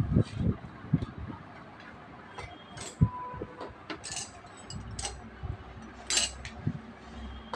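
Scattered metallic clinks and light knocks as a mountain bike's disc-brake front wheel is handled and fitted into the fork dropouts, with one sharp knock about three seconds in.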